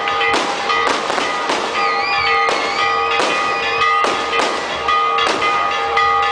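Fireworks going off one after another, a sharp bang about every half second to second, over music with steady held tones.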